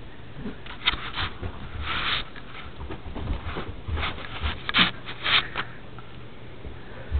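A dog sniffing and snuffling close by: a string of short, irregular breathy snorts and rustles, the loudest about five seconds in.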